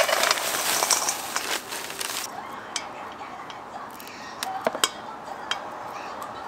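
Batter-coated food sizzling in hot frying oil, a loud hiss that falls away sharply about two seconds in, followed by scattered clinks and taps of metal utensils and dishes.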